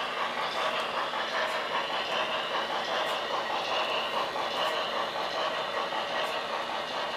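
Model train of coal hopper cars rolling along the layout track: a steady running noise of wheels and motor, with a few faint clicks from the wheels.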